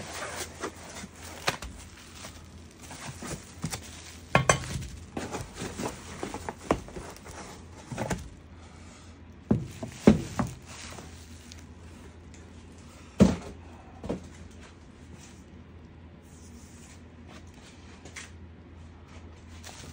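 Cardboard and plastic bubble wrap rustling as wrapped metal brake parts (disc, caliper, master cylinder) are taken out of a box and set down on a wooden workbench, with several sharp knocks and clinks, the loudest about ten and thirteen seconds in.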